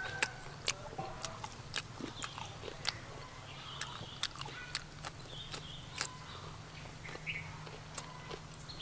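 A person chewing grilled pork rib and cucumber with the mouth close to the microphone: irregular sharp mouth clicks and smacks, about two a second.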